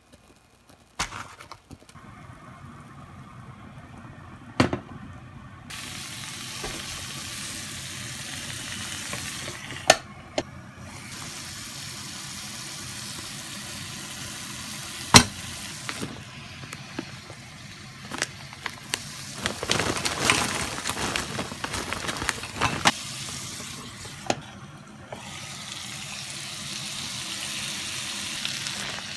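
Sliced meat sizzling and frying on the hot grill plate of a hot sandwich maker: a steady hiss that starts about six seconds in, after a few sharp knocks. About two-thirds of the way through come louder, irregular stirring and scraping sounds.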